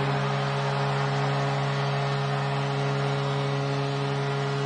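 Arena goal horn sounding one steady low chord over a cheering crowd, the signal of a home-team goal.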